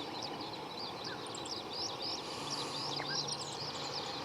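Small birds chirping and twittering continuously in quick high notes over a faint outdoor background.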